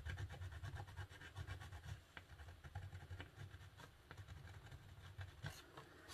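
Faint scratching of a watercolour pencil worked in many short, quick strokes over rough 300 lb Arches watercolour paper, with a couple of sharper clicks near the end.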